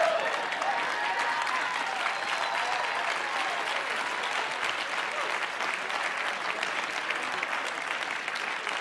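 Congregation applauding steadily, a dense crackle of many hands clapping, with a few faint voices calling out near the start.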